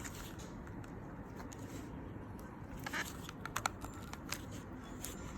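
Faint small clicks and rustling from hands working a flat ribbon-cable connector and its lock inside an opened PL18EV Lite radio controller, with a short cluster of sharper clicks about three seconds in.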